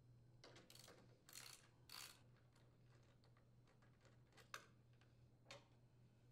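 Near silence, with a few faint, scattered clicks and rustles of a socket wrench and engine parts being handled; one sharper click comes about four and a half seconds in.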